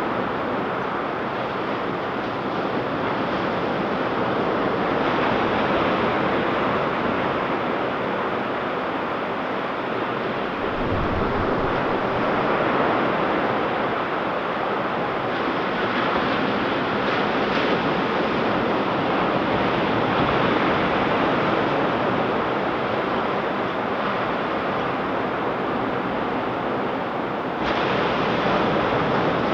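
Ocean surf breaking and washing up a sandy beach: a steady wash of waves that swells and eases, with a brief low rumble of wind on the microphone about a third of the way in.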